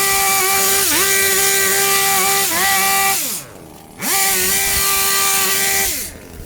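Hedge trimmer running at full speed in two bursts, its pitch dipping briefly as the blades bite into the hedge. Each burst ends with the motor winding down to a stop, about three seconds in and again near the end.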